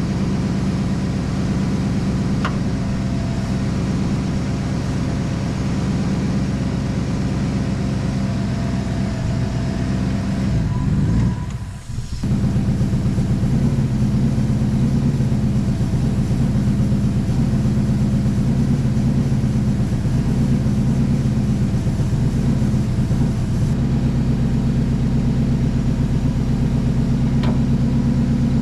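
Chevy Silverado engine running at a raised idle, set higher in the computer tune so it keeps running while Seafoam intake cleaner works through it. The level dips briefly about twelve seconds in, then the engine runs steadily again.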